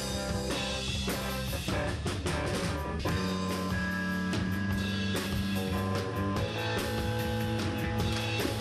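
Background music with guitar and drums, playing with a steady beat.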